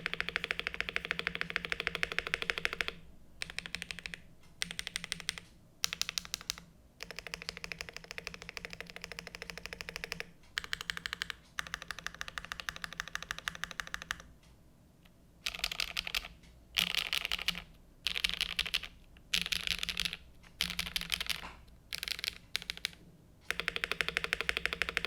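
Typing on a Zoom75 gasket-mount mechanical keyboard with HMX Cheese switches, GMK Fuji keycaps and an aluminium plate: runs of rapid keystrokes broken by short pauses, the longest pause about two-thirds of the way in.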